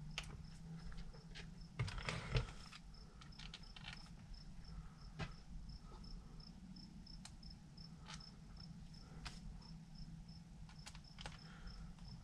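A cricket chirping steadily at about four chirps a second, with scattered faint clicks and knocks of handling, the loudest cluster about two seconds in.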